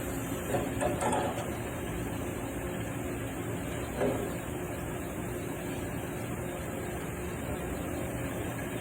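Machinery running steadily with a mechanical hum, with a short clatter about a second in and another knock about four seconds in.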